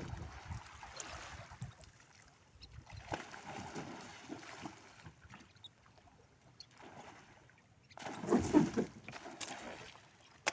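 Water splashing and sloshing around a small fishing boat, in uneven bursts with short quiet gaps; the loudest burst comes about eight seconds in.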